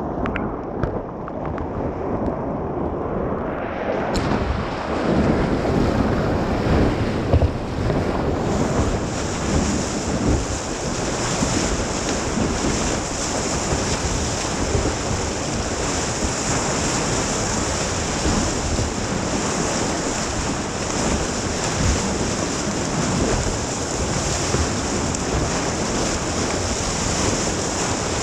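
Steady rushing noise of wind on the microphone, growing louder about four seconds in, with a steady high hiss joining about eight seconds in.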